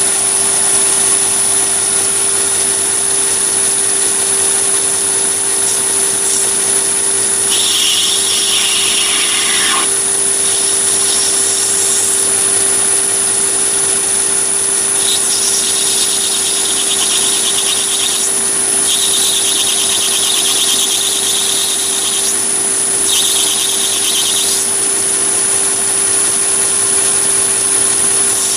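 Chinese mini lathe running with a steady motor whine while a carbide insert turning tool cuts a spinning brass bar. The cutting comes in about five passes of one to three seconds each, as a harsher, higher-pitched sound over the whine.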